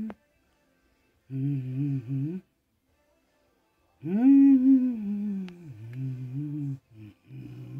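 A man humming a slow, wordless tune in short phrases with silent pauses between. The longest and loudest phrase comes about four seconds in and opens with an upward swoop in pitch.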